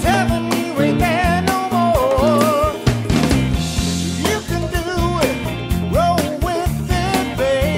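Band music: a singer with a wavering voice over a steady drum beat and a stepping bass line.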